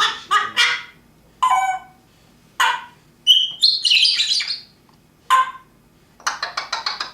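Pet parrot calling in a string of short squawks and chattering notes, with a clear whistle a little past the middle. It ends in a fast run of about eight quick notes a second.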